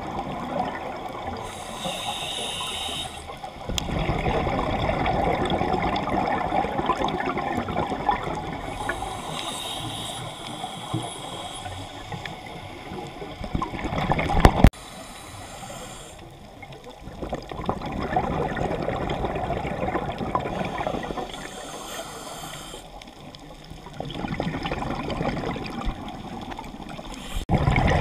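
A scuba diver breathing through a regulator underwater: a short hissing inhale followed by a longer bubbling exhale, repeating about four times.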